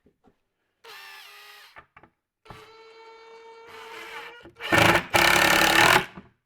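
Power drill driving screws into a plywood cabinet: a brief spin-up about a second in, a longer steady whine, then a loud, rough stretch near the end as the screw drives in.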